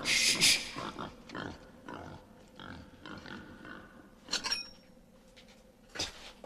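A pig grunting, with a loud, sudden high squeal in the first half-second and a couple of sharp clicks about four seconds in and again near the end.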